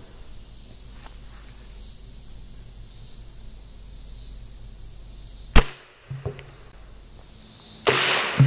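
A single shot from a .45 ACP Glock 21 pistol: one sharp crack about five and a half seconds in, followed shortly by a faint knock. Near the end comes a rougher burst of noise lasting about half a second.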